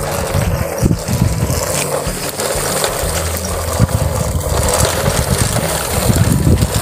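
Plastic toy trucks, linked by a cord into a train, with their wheels rolling and scraping over rough concrete: a steady gritty rattle.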